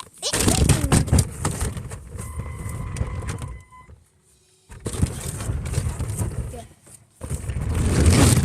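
Remote-control monster truck driving in three bursts with short stops, its small electric motor whining steadily for about a second in the middle of the first run while the truck rattles and scrapes over the ground.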